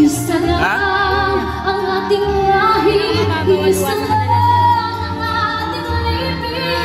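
Women singing live into microphones over instrumental backing, the voices sliding through runs and glides above a steady bass line.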